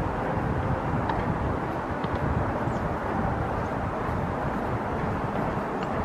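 Steady outdoor background noise: an uneven low rumble with hiss, and a few faint high chirps scattered through it.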